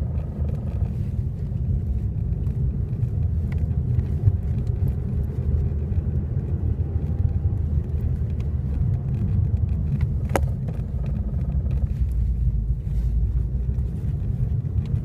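Ford Focus ST on the move, with a steady low rumble from engine and road, a few faint clicks and one sharp knock about ten seconds in. The owner reports this knocking noise when turning left with the car cold.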